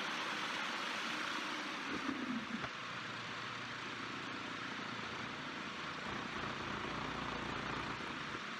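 Vibratory tumbler running: a steady rattling hiss of triangular media and steel T-nut blanks churning in the bowl. About two seconds in the lid goes on with a few knocks, and the sound is slightly quieter after.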